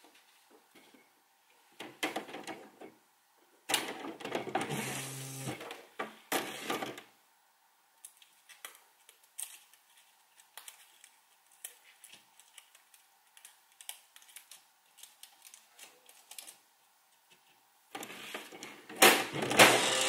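Smith Corona SL600 electronic typewriter being loaded with a sheet of paper: the paper slides in and the machine whirs mechanically for a few seconds, then come sparse light clicks as the paper is set. A louder burst of mechanical whirring and clatter follows near the end.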